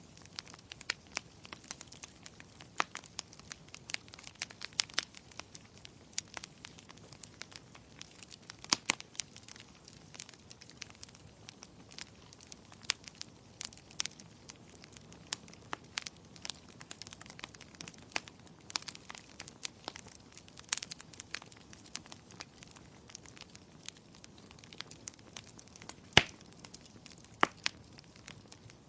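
Wood fire burning in a fireplace: a steady irregular crackle of sharp pops and snaps over a soft hiss of flame, with one louder pop near the end.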